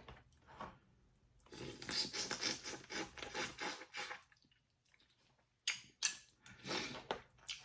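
Crawfish shells being cracked and peeled close to the microphone: a dense run of crackling and rubbing about a second and a half in, then a few sharp separate cracks near the end.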